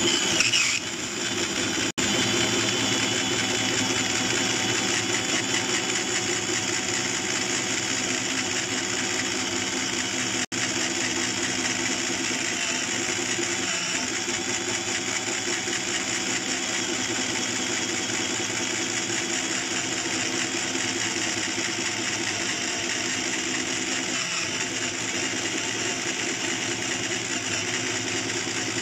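Parkside PBSA 12 D4 12-volt cordless drill in first gear boring a 45 mm Forstner bit into wood, its motor running steadily under heavy load with the bit cutting. The bore is far beyond the drill's rated 25 mm, and the drill is straining a little. The sound breaks off for a split second twice.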